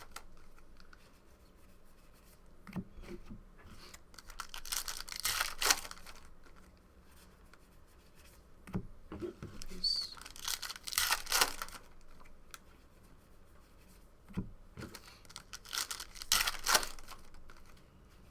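Foil trading-card pack wrappers being torn and crinkled in three rustling bursts, each a few seconds apart and each preceded by a light knock.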